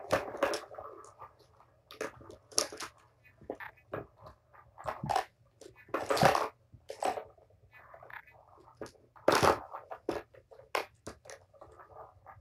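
Kittens playing rough on a cardboard scratcher and a plastic ball-track toy: irregular scuffles, knocks and rustles, with two louder bursts about halfway and three-quarters of the way through.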